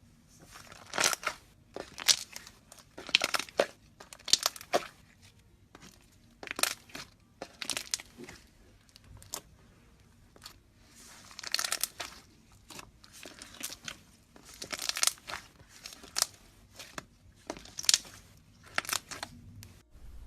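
Slime being squeezed and worked by hand, making irregular short bursts of crackling and squishing noise, often several in quick succession, with brief quiet gaps between handlings.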